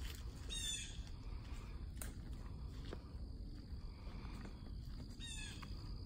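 A bird calls twice, a short harsh call of a few quick falling notes about half a second in and again near the end. Under it runs a steady low rumble, with a couple of faint clicks between the calls.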